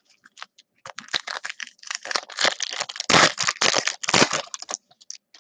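Foil wrapper of a Topps Chrome baseball card pack being torn open and crinkled by hand: a run of crackling rustles, loudest about three seconds in, stopping shortly before the end.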